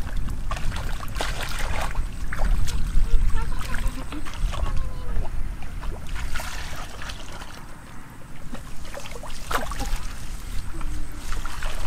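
Shallow muddy water splashing and sloshing as a wire-mesh fish basket is dipped, dragged and lifted by hand, with scattered knocks and a low wind rumble on the microphone.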